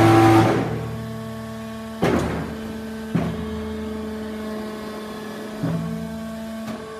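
Hydraulic power pack of a cylinder strip-down bench humming steadily while the clamping and twisting head is worked. A louder strained note fades within the first half second. The hum jumps in level about two and three seconds in, then dips lower in pitch for about a second near the end as the machine takes load.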